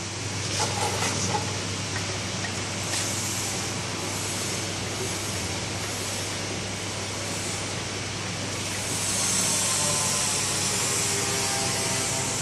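Machinery running steadily: an even hiss over a constant low hum, with a few light clicks in the first second or so and the hiss growing louder about nine seconds in.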